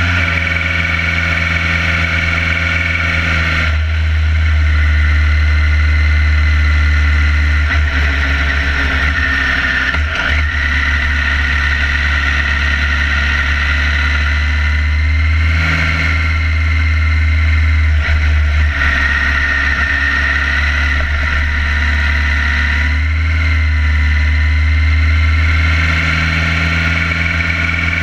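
Onboard sound of a sport motorcycle being ridden: the engine runs with a steady low drone and a thin high whine on top, shifting slightly in pitch a few times as the throttle changes.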